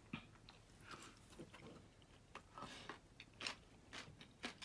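A person chewing a mouthful of food, faint and uneven, with a few small clicks.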